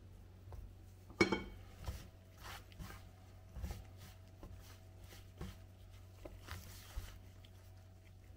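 Batter-coated chicken being dredged in flour in a metal baking tray by gloved hands: soft scuffs and rustles of flour being pressed and tossed, with one sharp, briefly ringing metallic clack about a second in.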